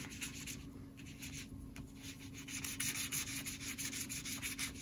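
A coloured ice cube frozen on a popsicle stick scrubbed back and forth across paper: a faint run of quick, scratchy rubbing strokes, closer together in the second half.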